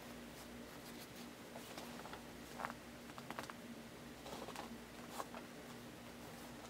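Shoelaces of a Nike knit running shoe being pulled and tied, giving faint rustles and small irregular ticks over a low steady hum.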